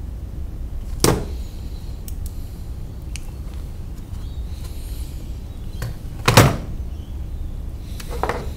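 Hand-handling knocks of 3D-printer parts (printed plastic pieces and metal rods) on a workbench: three sharp knocks, the loudest about six seconds in as the assembly is set down, with a few faint clicks over a low steady rumble.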